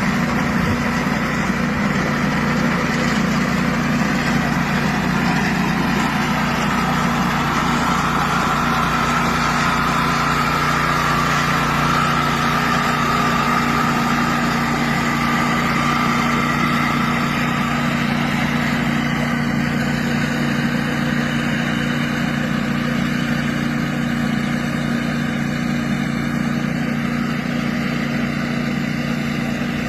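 Engine of a crop reaper running steadily at an even speed.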